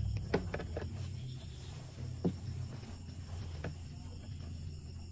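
A few light clicks and taps from pinning and handling fabric at a stopped sewing machine, over a steady low hum.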